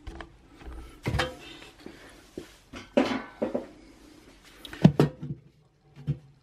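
Irregular knocks and clatters of hands and a cordless drill against the metal oven cavity, the loudest about three seconds in and again about five seconds in.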